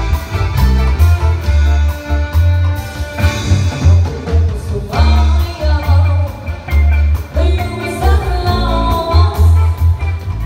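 Live band music through a PA: drums, bass guitar, electric guitar and keyboard with a heavy bass beat, and a woman singing over it from about halfway through.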